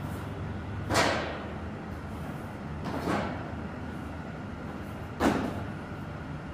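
Cardboard boxes being set down on a pallet stack: three sharp thuds, about a second in, about three seconds in and near the end, each with a short fading tail, over a steady low machine hum.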